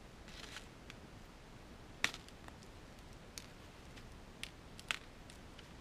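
Faint handling of small parts: a few light ticks and clicks as a tiny screwdriver touches the desoldering gun's solder-clogged filter and spring, the clearest about two seconds in, after a brief faint scratching near the start.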